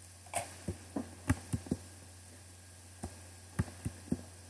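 About ten faint, short clicks and knocks come at irregular spacing, in a cluster in the first second and a half and again after three seconds. A steady low hum runs underneath.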